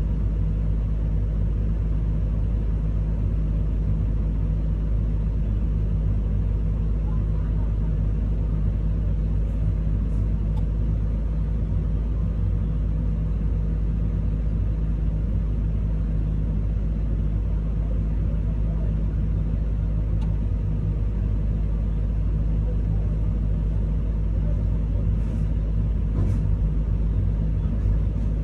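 Komatsu PC210 excavator's diesel engine running steadily, heard from inside the operator's cab as a constant low drone, with a few faint clicks.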